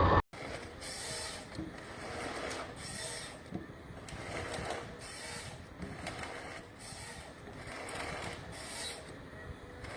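Machinery working, with uneven mechanical rattling and rubbing that swells and fades every second or two. It starts right after an abrupt cut from louder vehicle noise.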